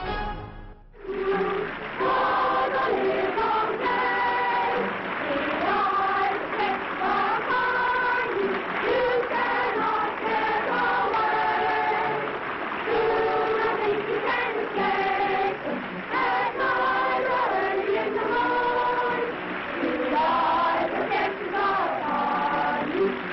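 A choir singing many voices together, coming in about a second in as the preceding music drops out.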